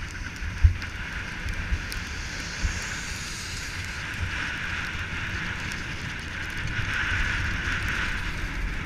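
Skis running over packed snow, a steady scraping hiss that grows louder near the end as the skier picks up speed, with wind buffeting the microphone and a few low thumps in the first few seconds.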